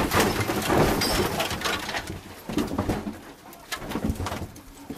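Rally car crashing off the road with its bonnet flipped up: scraping and knocking as it ploughs through undergrowth, dying away over the first two seconds, then scattered knocks and rustling as the stopped car settles.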